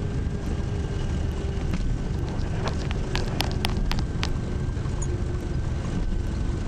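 Light aircraft's engine and propeller running steadily, heard inside the cockpit, with a thin steady tone over the drone. About three seconds in comes a quick run of sharp clicks.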